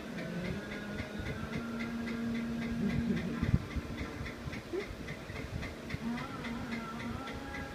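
A faint, steady ticking about three times a second, with a low steady hum for a few seconds near the start.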